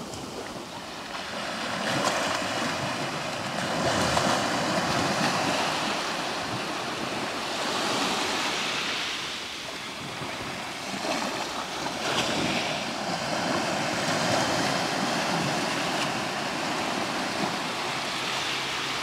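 Sea waves washing onto the shore, the surf swelling and easing every few seconds.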